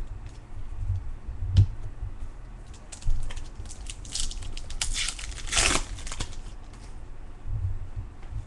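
Baseball cards and their plastic wrapping being handled: crinkling and rustling, heaviest about four to six seconds in, with a few soft knocks.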